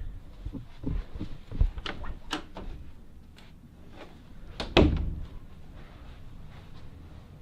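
Soft knocks and a few sharp clicks, then a door slamming shut with one heavy thud about five seconds in.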